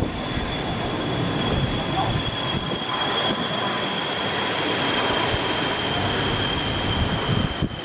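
Strong wind buffeting the microphone, a rough rumbling noise, with a steady high-pitched whine throughout.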